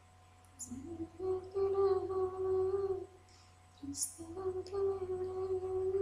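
A woman humming a slow tune in two long held phrases of about two seconds each, with a short gap between and a few light clicks, over a steady low electrical hum.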